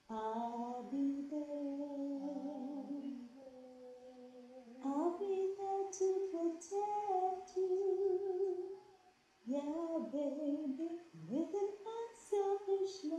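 A woman humming a wordless melody in long held notes that step up and down in pitch, with a short break about nine seconds in and a quick upward slide about eleven seconds in.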